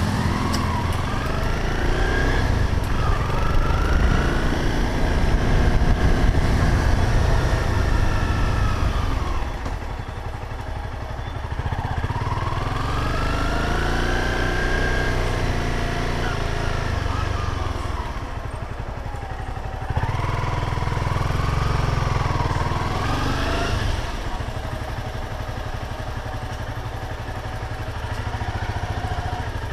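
Motorcycle engine running under way, its pitch rising and falling in several sweeps as the throttle opens and closes, with road and wind noise. After about 24 seconds it settles to a lower, steadier note as the bike slows to a crawl.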